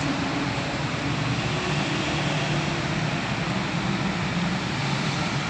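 Steady background hum and hiss, constant throughout, with no distinct knocks or clicks.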